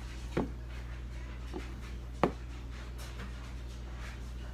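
A few light knocks of a utensil against a container as sticky sourdough starter is scooped out and divided, the clearest about two seconds in, over a steady low hum.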